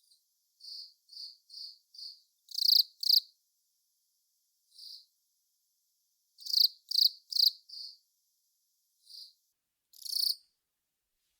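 Long-mouthed cricket (Velarifictorus aspersus) singing: short, high chirps, some given singly and some in quick runs of two to four, with pauses of up to a couple of seconds between groups. Some chirps are much louder than others.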